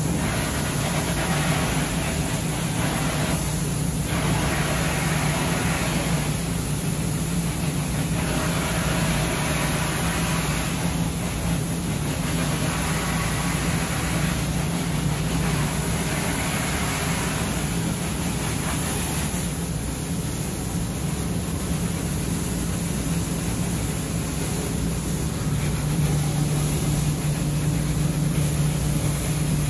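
Steady machinery hum of a ship's machinery space, with a hiss that swells and fades every few seconds.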